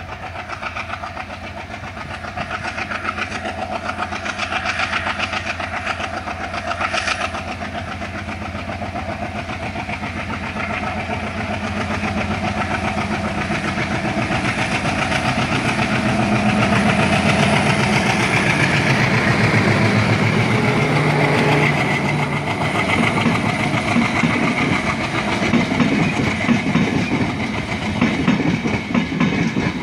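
An ALCO WDM-3A diesel locomotive's 16-cylinder engine chugging as it pulls a passenger train away from the station. It grows steadily louder as it approaches and passes close by, and near the end the coaches' wheels clatter over the rail joints.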